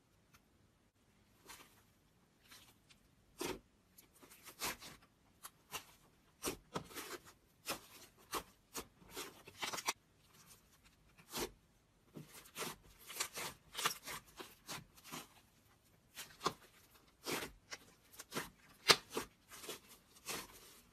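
Slime being pressed, poked and squeezed by hand, giving a run of irregular short clicks and pops, the sharpest one near the end.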